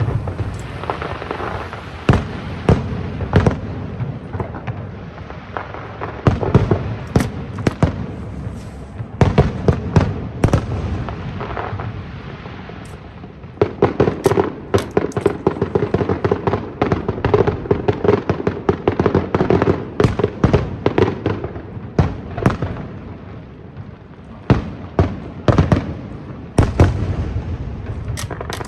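Aerial fireworks bursting: a string of sharp booms and cracks, with a dense, rapid barrage of reports in the middle stretch before it thins out again.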